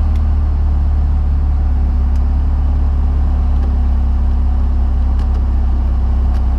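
Mazda RX-7 FD3S's twin-rotor rotary engine idling steadily at about 1,000 rpm, heard from inside the cabin. It runs smoothly after the ECU wiring repair, a sign the wiring is good enough to run.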